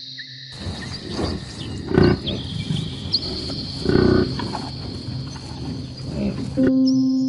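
A dubbed-in, roar-like animal growl sound effect laid over the tortoise's yawn, with two louder swells about two seconds apart; it cuts off sharply near the end, where soft piano music begins. Faint chirping electronic tones run underneath.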